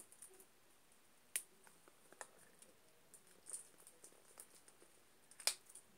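A few scattered sharp clicks and faint ticks as a small round container of putty is handled and its lid pried at; the sharpest click comes about a second and a half in and the loudest near the end.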